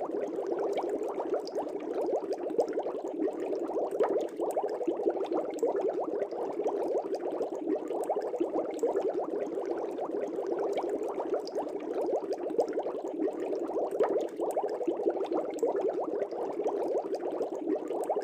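Aquarium air bubbles rising and breaking at the water surface: a steady, dense bubbling made of many small rapid pops.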